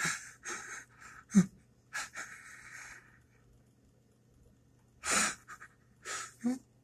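A person's ragged, distressed breathing: a run of short gasps and breathy exhalations, a few with a brief voiced catch, then a pause of about two seconds before more gasps.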